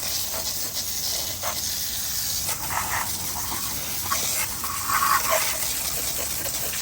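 Steady hissing spray of water from a hose nozzle on a robot lawnmower's body, knocking off dirt and grass, with a few short louder splashes about three and five seconds in.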